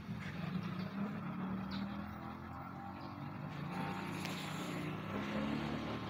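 A motor vehicle's engine running: a steady low hum that drifts slightly up and down in pitch, with a faint higher whine about four seconds in.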